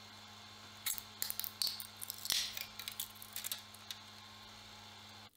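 A 3D-printed PLA part being twisted and pulled off a 3D printer's build plate: a series of short clicks and small scrapes of plastic against the bed from about a second in until about four seconds in, over a steady low hum.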